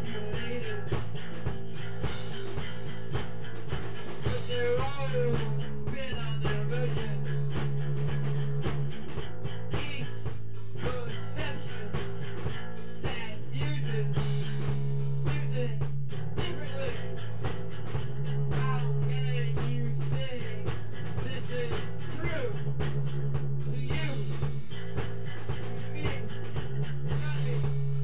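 Live instrumental rock jam: a steady drum beat under held bass notes that move every second or two, with a lead line of bending, wavering notes above.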